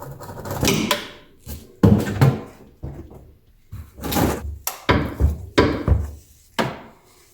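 Tools and equipment being handled and set down: a run of irregular knocks, clunks and rattles with short gaps, the loudest about two seconds in.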